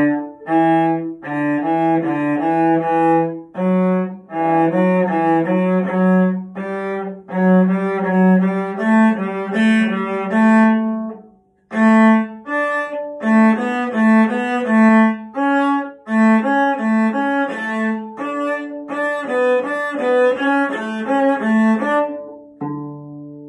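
Cello bowed at a moderate practice tempo, playing a short lively tune in a steady rhythm of quarter notes followed by quicker eighth notes. The playing breaks off briefly about halfway, then ends a little before the finish with a quieter note left ringing.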